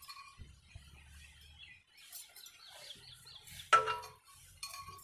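Steel tumbler knocked against a steel plate: one sharp, ringing metallic clink about three and a half seconds in, with fainter metal ringing near the start and near the end.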